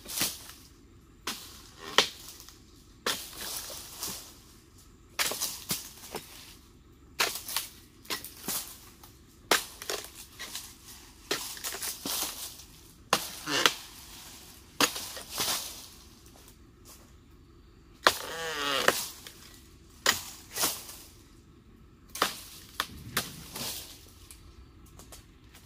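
Steel dodos chisel on a long pole chopping through oil palm frond bases during pruning: sharp cracks roughly once a second, with the rustle of cut fronds dropping. About two-thirds through, one longer creak falls in pitch.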